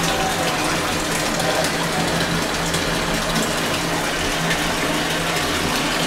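Water running steadily into the drum of a Singer top-loading washing machine as it fills, over a steady low hum.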